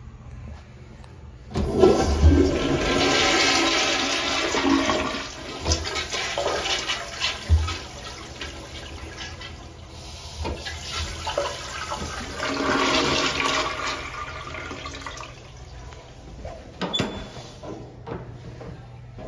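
American Standard 1.6 gpf tankless commercial toilet flushing through its chrome flush valve. A sudden loud rush of water starts about two seconds in, and the bowl swirls and drains for over ten seconds. A second surge comes as the bowl refills, then it trails off, and a single knock sounds near the end.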